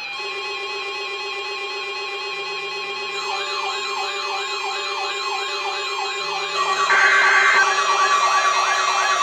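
Electronic weather-radio alert tones sounding during an NOAA Weather Radio alarm test. A steady tone is joined about three seconds in by a siren-like tone that sweeps up and down two or three times a second. More tones stack on and it gets louder about seven seconds in.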